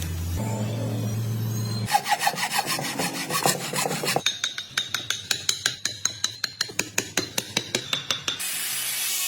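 Wood being worked by hand with a rasping tool in quick back-and-forth strokes, about four or five a second. A steady low hum is heard before the strokes begin, and a steady hiss follows near the end.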